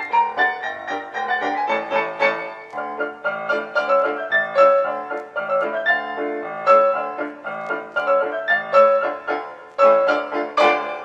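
Background piano music: a lively tune of quick, closely spaced notes.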